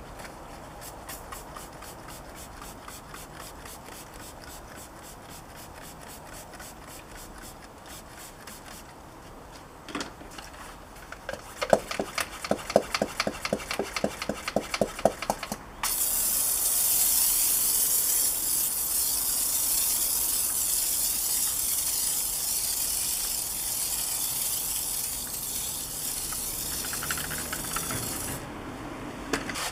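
A hand-pump foam sprayer being pumped up in quick strokes, several a second, then sprayed in one long steady hiss for about twelve seconds. Before the pumping there is faint rhythmic scrubbing.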